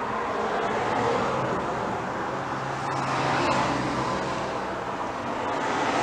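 Road traffic outside, a steady rush of tyre and engine noise that swells a little as vehicles pass, with a low engine hum for a couple of seconds in the middle.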